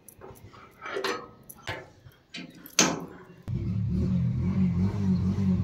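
Brass padlock on a metal gate being unlocked and handled: scattered metal clicks and rattles, with a sharp clank about three seconds in. Then a steady low rumble sets in for the last two seconds as the gate is pushed.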